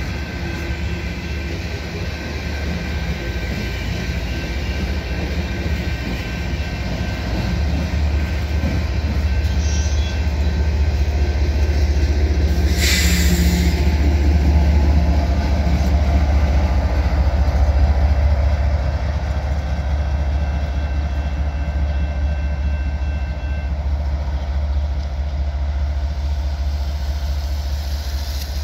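Loaded coal hopper train rolling past with a steady low rumble that swells about a third of the way in and eases after about 18 seconds, as the rear GE ES44AC GEVO distributed-power locomotive's V12 diesel goes by and moves away. A brief hiss sounds about 13 seconds in.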